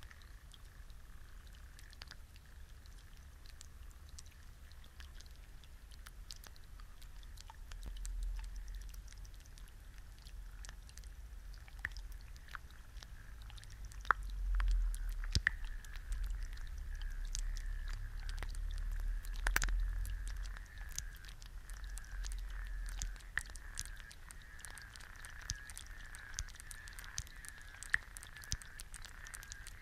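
An egg frying in a pan, recorded close up: a dense, irregular stream of small pops and crackles from the bubbling white, over a faint steady high sizzling note that grows stronger in the second half. A low rumble swells up in the middle and fades again.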